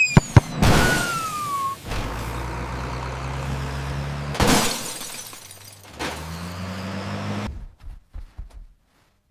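Cartoon sound effects: a springy boing and a few sharp knocks, a falling whistle, then a low engine drone broken by a crash about four and a half seconds in, and a second engine drone that rises in pitch before cutting off.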